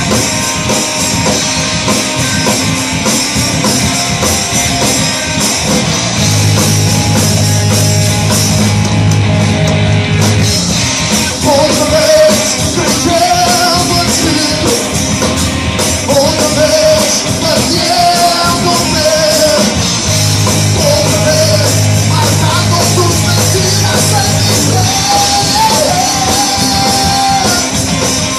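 Live rock band playing loud: electric guitar, bass guitar and drum kit, with a man singing lead vocals from about eleven seconds in.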